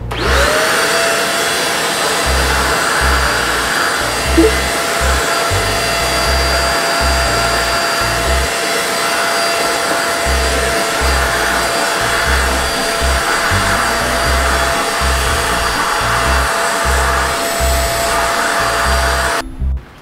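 Deerma DX700 vacuum cleaner switched on, its motor spinning up to a steady high whine with a rushing airflow as it sucks dirt off a tile floor. The motor stops suddenly shortly before the end. Background music with a steady beat plays underneath.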